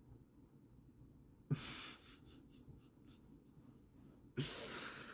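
Two breathy exhales close to the microphone, a short one about a second and a half in and a longer one near the end, with a few faint clicks between.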